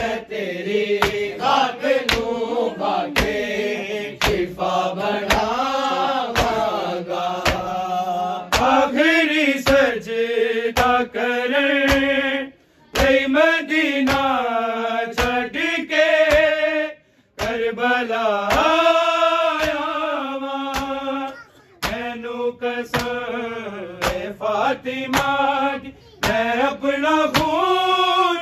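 Voices chanting a noha mourning lament in a slow, bending melody over a steady beat of sharp slaps, about two a second, from matam (rhythmic chest-beating by the mourners). The chant and beat break off briefly twice.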